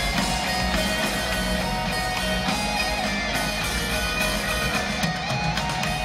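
Heavy metal band playing live, with electric guitars carrying a sustained, melodic instrumental passage over bass and drums.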